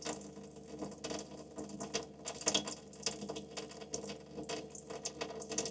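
Water from a camper van's sink faucet running and pattering into the basin, with a faint steady hum underneath. It is bleach solution from the freshwater tank being flushed through the lines to sanitize them.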